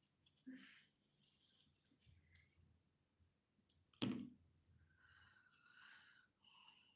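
Grooming scissors snipping through a toy poodle's fur: a quick run of snips at the start, then a few scattered clicks and a single louder knock about four seconds in.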